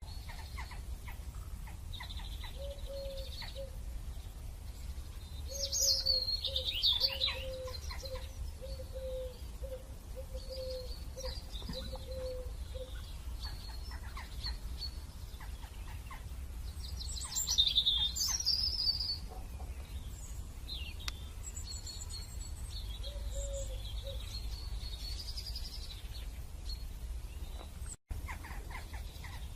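Birds chirping and twittering, with two louder bursts of rapid high chirps, about six seconds in and again around seventeen to eighteen seconds. A low call repeats in a steady, even series through the first half. A steady low hum runs underneath.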